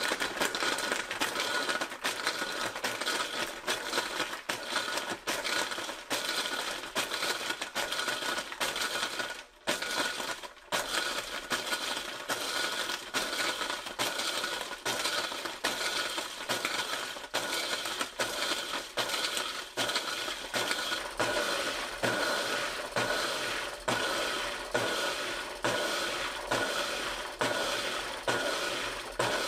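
Breville Fresh & Furious blender running its auto pulse ice-crush program, ice cubes clattering and being crushed against the jug in rapid repeated pulses, with two brief pauses about nine and ten seconds in. The sound is turned down in level.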